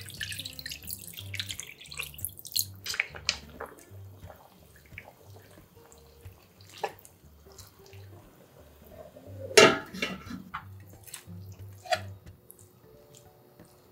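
Water poured from a plastic measuring jug into a frying pan of kimchi and pork back ribs, a pouring hiss for about the first three seconds. Then a few short knocks of tongs against the pan, the loudest about halfway through, over soft background music.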